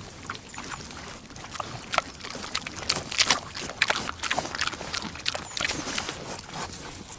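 Pig eating: a steady, irregular run of chomping and crunching clicks, loudest about halfway through.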